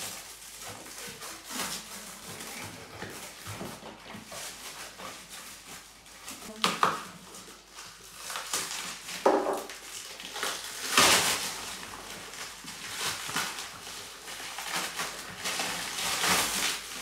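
Clear plastic bag wrapping crinkling and rustling in irregular bursts as it is pulled and torn off a bottle. The loudest burst comes about eleven seconds in.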